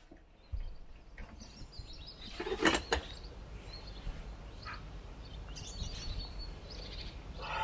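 Glass coffee carafe of a Moccamaster coffee maker set back onto its hot plate with a clack about three seconds in, among the handling sounds of ceramic mugs being moved and picked up. Faint bird chirps come and go.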